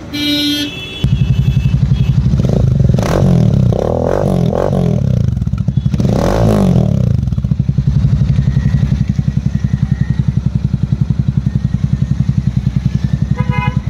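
Royal Enfield Super Meteor 650's 648 cc parallel-twin running through a Dug Dug Venom aftermarket exhaust. It starts up about a second in and is blipped several times in the first half, the pitch jumping up and falling back. It then settles to an even, pulsing idle.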